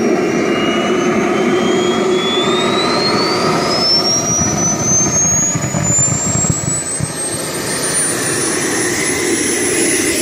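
Small gas turbine engine on a mini bike running, its whine climbing steadily in pitch over several seconds as it spools up, then holding at a high whistle near the end.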